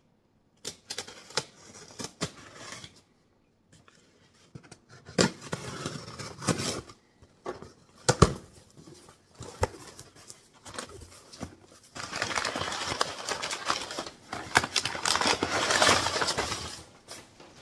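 A taped cardboard box is opened by hand, with scattered rustles, scrapes and a sharp knock about eight seconds in. After that comes a long, steady crinkling of crumpled kraft packing paper being pulled out of the box, the loudest part of the sound.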